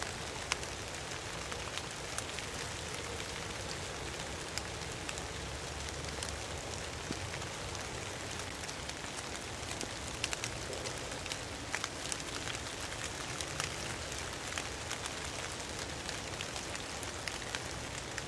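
Steady rain: a constant hiss with many scattered sharp ticks of single drops.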